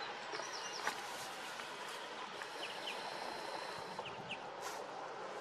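Steady outdoor hiss with a few short, high bird chirps scattered through it.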